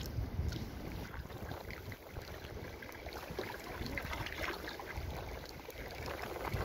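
Kayak paddle strokes: the blades dipping, splashing and dripping, with water lapping against the hull and a low wind rumble on the microphone.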